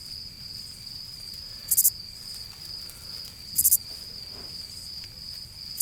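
Insects: a steady, high cricket-like trill, with a louder, very high buzzy insect call repeating about every two seconds.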